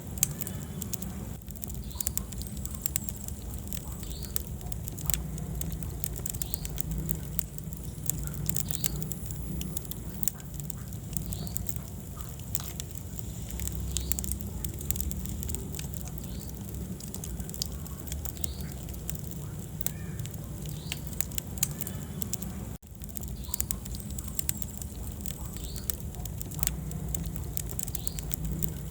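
Wood fire burning in a fireplace: a steady low rumble of flames under frequent sharp crackles and pops of burning logs. The sound drops out for an instant about two-thirds of the way through.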